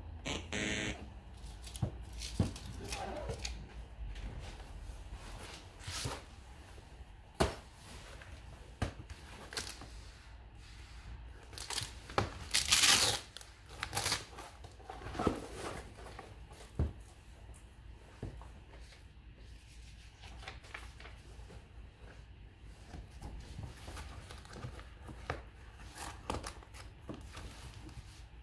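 Rustling, crinkling and tapping as a foil document wallet, a fabric fire-resistant pouch and a paper slip are handled, with a louder rasping burst about thirteen seconds in.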